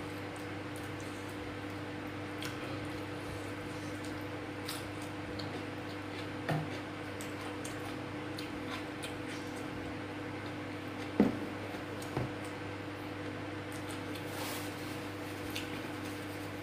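Eating by hand: soft wet squishing and small clicks of chewing and of fingers working rice on a plastic plate, with one sharp tap about eleven seconds in. A steady low hum runs underneath.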